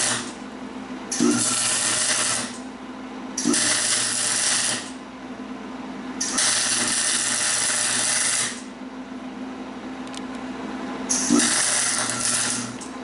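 MIG welder arc crackling and hissing as short weld beads are laid on a dirt late model chassis frame rail: four bursts of one to two seconds each, with pauses between. A steady low hum runs underneath.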